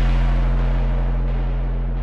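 Background music: a deep, sustained low note that starts suddenly and slowly fades.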